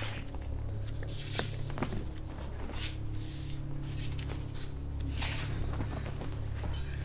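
Shuffling footsteps, rustling clothing and a few light knocks as a person is handled and laid down on a padded table, over a low steady hum.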